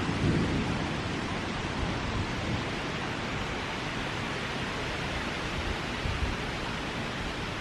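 Steady rushing noise of wind picking up ahead of a thunderstorm, even throughout with no thunderclaps.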